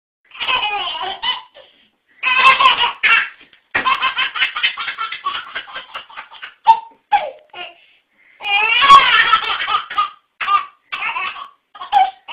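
A baby laughing in bursts of high-pitched giggles and belly laughs, with a run of quick, even ha-ha pulses partway through.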